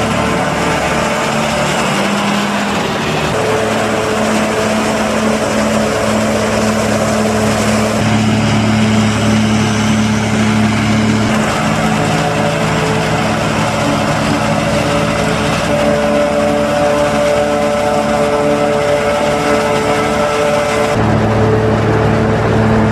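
Diesel engines of a John Deere self-propelled forage harvester and the John Deere tractors hauling alongside it, running steadily under load while chopping corn. The engine note changes abruptly several times as the shots change.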